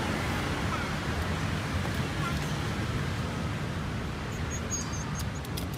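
Steady low outdoor background rumble of street traffic, with faint voices and a few short clicks near the end.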